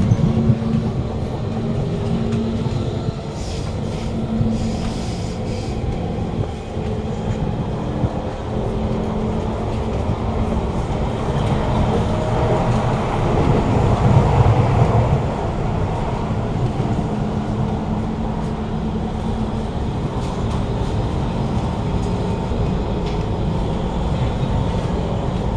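Kawasaki Heavy Industries C151 metro train running between stations, heard from inside the carriage: a steady rumble of wheels on track with a steady hum from its GTO-VVVF traction equipment.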